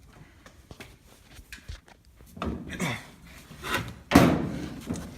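Knocking and clattering handling noises, ending in one loud sudden thunk about four seconds in.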